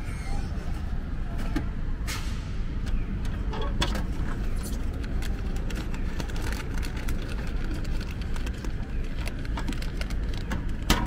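Steady low rumble of street traffic with scattered clicks and knocks from a vending machine and its clear plastic pickup flap being pushed open, the sharpest click near the end.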